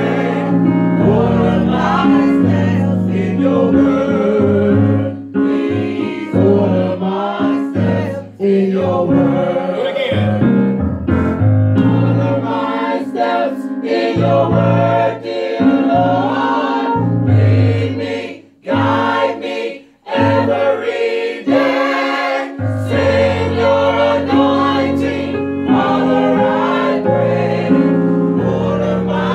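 Gospel vocal group singing in harmony through microphones, with two brief pauses about two-thirds of the way in.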